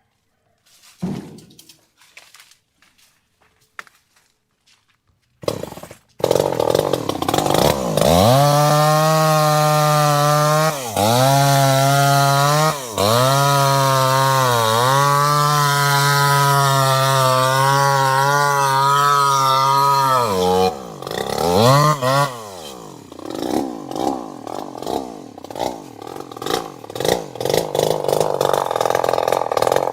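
A two-stroke chainsaw engine. After a few faint knocks it starts about six seconds in and runs at high revs with the throttle held, dipping briefly twice. About twenty seconds in it drops back to an uneven idle.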